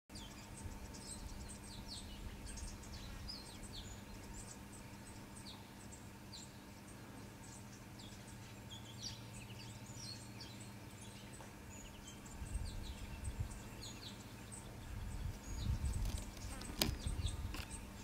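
Many short, high bird chirps scattered throughout over a light outdoor background. A low rumble builds in the last few seconds, and there is a single sharp click near the end.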